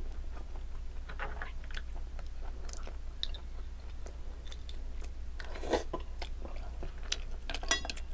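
Close-up chewing and wet mouth sounds of someone eating green mussels and rice, with scattered small clicks. Near the end, a short clatter as mussel shells are picked from the pile.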